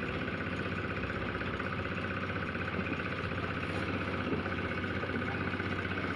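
A cement mixer's engine running steadily with a fast, even throb.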